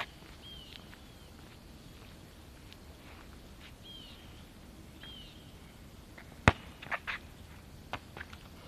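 A bird repeats a short chirp every second or so over faint outdoor background. About six and a half seconds in comes one sharp, loud knock, followed by a few lighter knocks.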